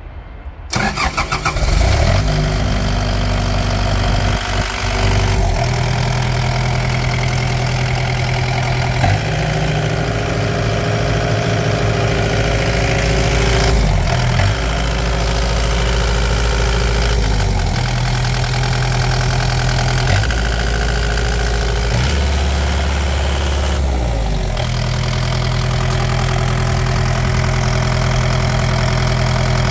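2019 Kubota KX080-4a excavator's four-cylinder diesel engine cranking briefly and starting about a second in, then running steadily, its note stepping up and down several times.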